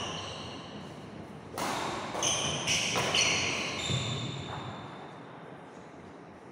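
A badminton rally: sharp racket strikes on the shuttlecock and short high squeaks of shoes on the wooden court, bunched together between about one and a half and four seconds in, each with a little hall echo, then quieter as play stops.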